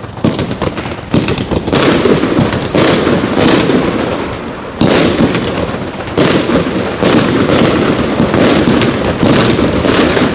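Pyroland Hairforce One compound firework cake firing its 30 mm gold willow shells in quick succession: sharp launch and burst bangs about two a second, overlapping into a continuous din.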